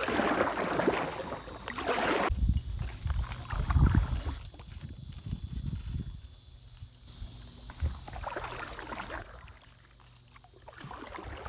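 Kayak on a fast river current: water splashing from the paddle and hull, with loud low rumbling bumps about two to four seconds in, then quieter water noise.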